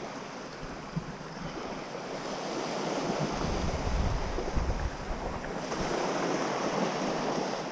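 Small waves washing up on a sandy beach, with wind on the microphone; the surf grows louder a few seconds in.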